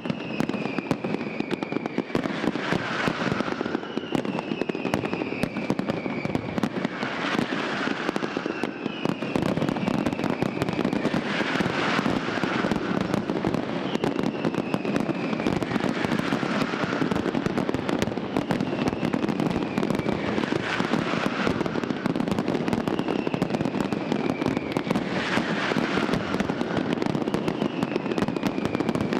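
Aerial fireworks display by Pirotecnia Vulcano: a steady, dense crackling and popping of shell bursts, with a falling whistle that comes back about every four seconds.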